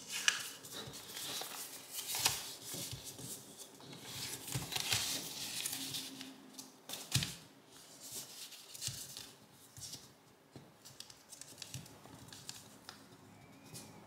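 Sheet of origami paper rustling and crinkling as fingers fold a flap and press its crease flat, in short irregular rustles and crisp clicks that grow fainter in the second half.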